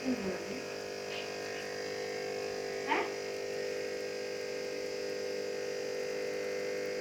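Steady electric hum from running aquarium equipment, the tank's filter and pump, with a brief short sound about three seconds in.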